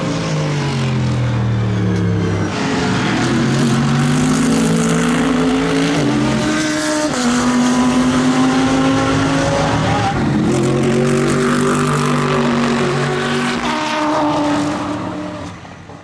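Mercedes-AMG GT3 race cars' V8 engines at full racing pitch. The engine note first falls, then climbs through the gears, with upshifts at about six and ten seconds, and fades out near the end.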